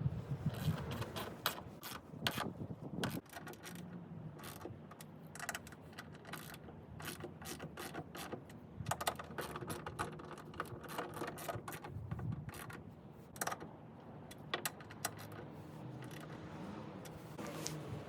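Ratchet wrench clicking in runs of quick clicks as bolts are turned, with pauses between runs.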